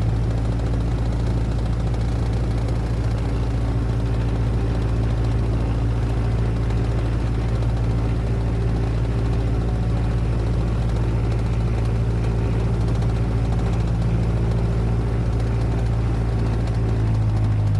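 Single-engine propeller Cessna heard from inside the cabin while taxiing, its engine running steadily at low power with a low, even drone.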